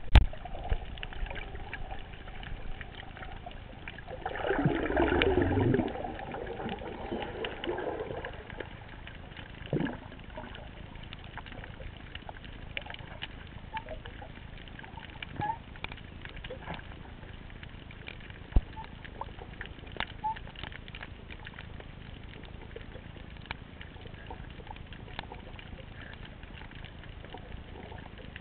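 Underwater sound heard through a GoPro's waterproof housing while freediving over a reef: a steady hiss dotted with sharp clicks and crackles, and a louder rushing, gurgling stretch about four to six seconds in.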